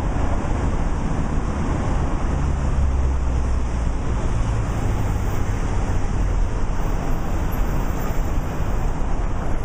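Steady roadside traffic noise, with a low rumble from wind on the microphone.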